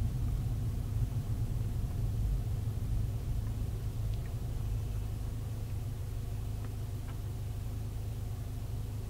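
Car engine and road rumble heard from inside the cabin while driving slowly, a steady low drone that gets a little quieter toward the end.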